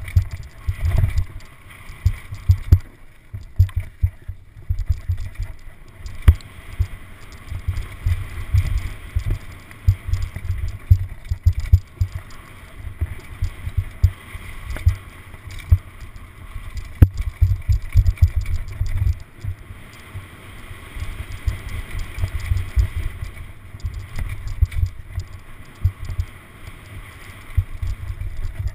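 Downhill mountain bike descending a rough dirt and rock trail, heard through a rider-mounted action camera: continuous jolting rumble and thumps as the bike and camera bounce over the terrain, with wind buffeting the microphone. Two sharp knocks stand out, about six seconds in and again near the middle.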